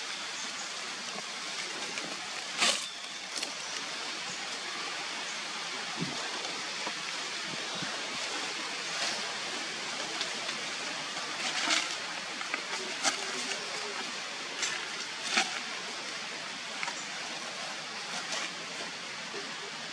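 Steady outdoor background hiss with a few short, sharp clicks or rustles scattered through it, the loudest about three seconds in and again near fifteen seconds.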